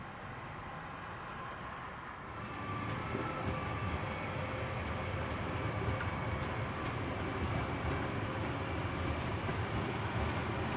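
A train running on the tracks through a station, growing louder about two seconds in as it nears, with a steady rumble and a high hiss joining about six seconds in.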